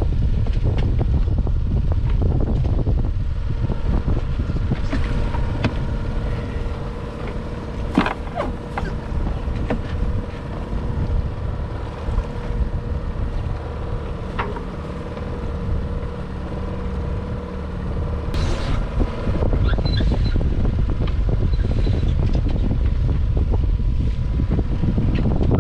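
Wind buffeting the microphone aboard a small sailboat, with a steady hum underneath through most of the middle. A few sharp knocks come through, the loudest about eight seconds in.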